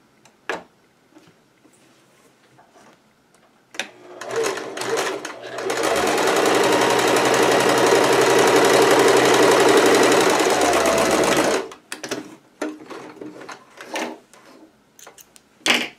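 Household sewing machine stitching a zigzag along a raw seam edge to keep it from fraying: it runs steadily for about six seconds, starting about six seconds in and stopping abruptly. Before and after it come fabric rustling and small clicks.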